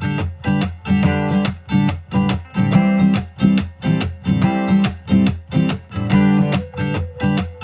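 Background music: an acoustic guitar strummed in a steady rhythm, about two strokes a second.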